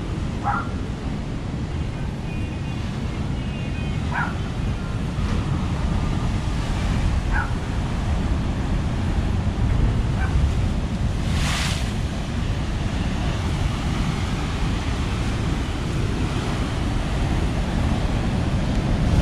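Heavy storm-driven surf breaking on the shore and against a stone seawall: a continuous rushing roar that swells into a louder hiss about halfway through, with wind buffeting the microphone.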